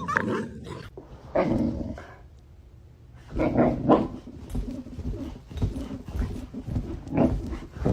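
A dog vocalising in short bursts, several times, with a quieter gap about two to three seconds in.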